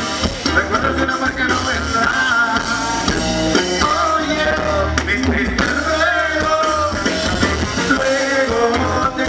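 Live norteño-style corrido band playing: a male voice singing over accordion, electric bass and a drum kit, with a steady pulsing beat.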